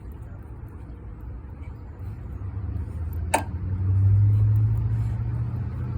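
A motor vehicle's engine running, its low hum growing louder about four seconds in, with a single sharp click shortly before.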